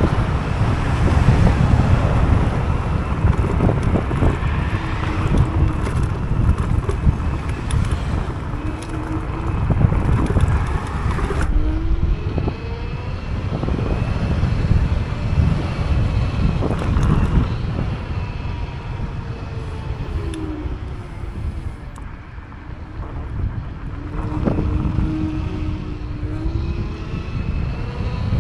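Wind buffeting the microphone of a moving Teverun Fighter 11 electric scooter, with road noise and a faint whine that rises and falls several times.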